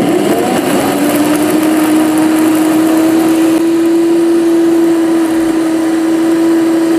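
Meichen high-speed countertop blender motor spinning up at the start, then running at a steady high pitch over a hiss. It is grinding dry-fried shiitake, dried shrimp and laver into powder.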